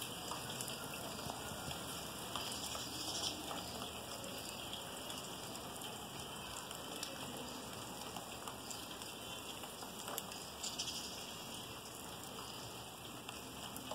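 Rain falling steadily on a wet concrete rooftop and its puddles: an even hiss with scattered sharp ticks of single drops.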